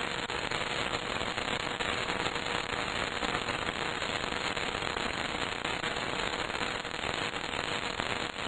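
Continuous dense crackling noise, like sizzling or static, with a faint steady tone underneath.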